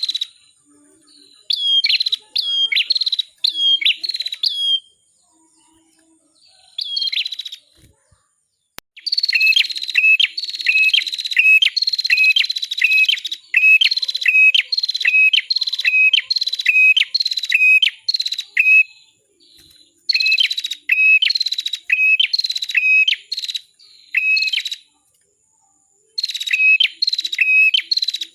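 A small songbird sold as the 'prenjak kepala merah' (red-headed prenjak) singing runs of short, sharp, loud chirping notes, about three a second, with brief pauses between the runs.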